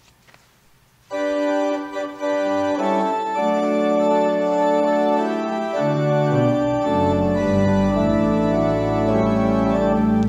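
Church organ starts playing about a second in, with sustained chords. Deep pedal bass notes join about halfway through, as the introduction to a hymn.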